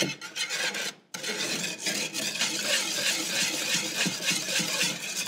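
Wire whisk beating eggs and sugar in a wooden bowl: a quick, steady scraping and rattling, after a brief break about a second in.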